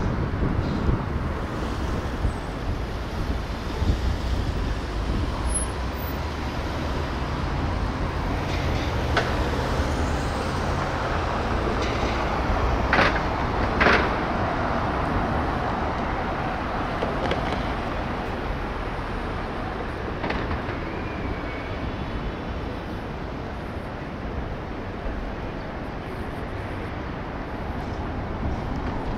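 City street traffic: a steady hum of passing cars and heavier vehicles, with two sharp clicks about thirteen and fourteen seconds in.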